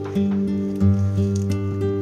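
Background music: acoustic guitar, with notes changing every half second or so.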